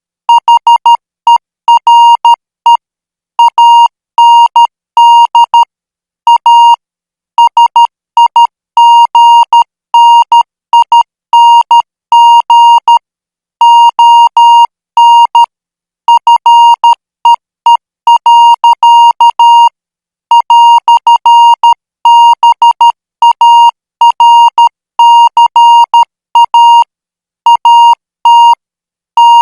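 Morse code practice signal sent at 12 words per minute: a single steady-pitched beep keyed on and off in dots and dashes, with short gaps between letters and longer pauses between words.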